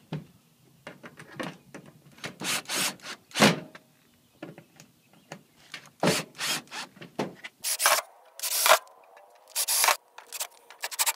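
An 18-volt Ryobi One+ cordless drill driving screws through a metal strap hinge into a garage door, in a series of short bursts with gaps between them.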